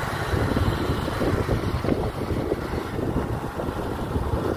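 Boda boda motorcycle taxi running along a dirt road, heard from on board, with wind rushing over the microphone.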